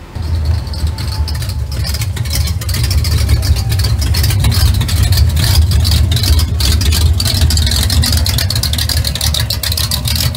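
A 1969–70 Shelby Mustang's V8 exhaust burbling loudly and unevenly as the car rolls by at low speed.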